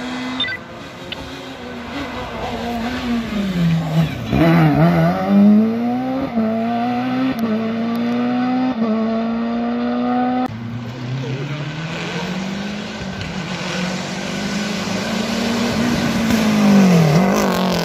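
Rally car engines at full throttle. One car's revs dip, then it accelerates hard through three quick upshifts. After a cut about ten seconds in, another car comes closer with its revs climbing, and they dip and rise again as it passes near the end.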